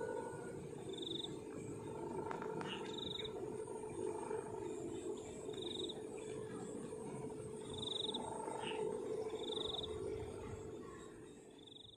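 Balinese kite hummers droning in the wind overhead: a steady, wavering low hum. Short high chirps repeat every second or two, and the hum fades out near the end.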